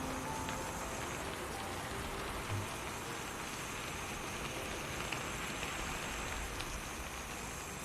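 Steady rain falling as an even hiss, with a brief soft low thump about two and a half seconds in.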